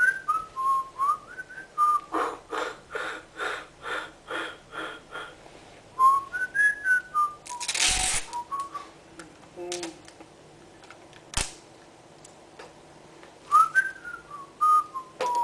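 A man whistling a short tune in a few brief, wandering phrases. In between come a run of short pitched pulses, about three a second, a brief hiss about eight seconds in, and one sharp knock a little after eleven seconds.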